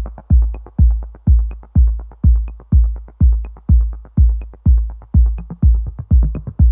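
Electronic dance music: a deep kick drum on every beat, about two a second, with a light tick now and then.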